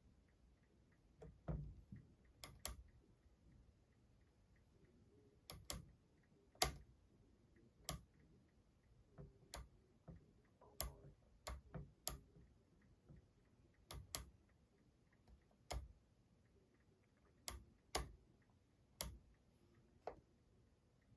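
Plastic toggle switches on a hobby radio transmitter clicking as they are flipped, a sharp click every second or two at an uneven pace, some in quick pairs, switching the model truck's lights on.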